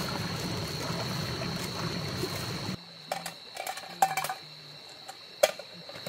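Water running and trickling under a steady high-pitched tone. About three seconds in, the sound drops abruptly to something quieter with a few sharp knocks and clicks, the loudest near the end.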